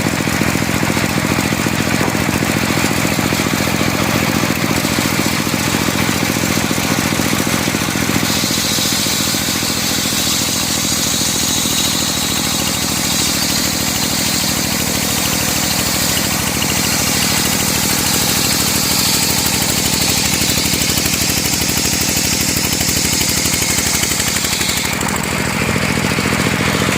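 Engine-driven circular sawmill running steadily. From about eight seconds in, a high-pitched whine is added as the blade cuts through medang timber, a 4 cm thick plank. The whine stops a couple of seconds before the end, leaving the engine and the spinning blade.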